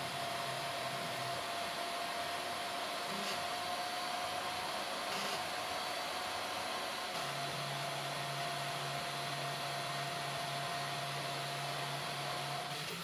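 3D printer running a print: steady fan hiss from the E3D hotend's cooling fan with a high steady tone over it. A low hum joins about seven seconds in.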